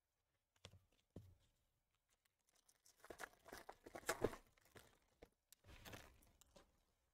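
Two soft knocks, then a foil trading-card pack wrapper being torn open and crinkled, loudest about four seconds in, with a shorter crinkle near the end.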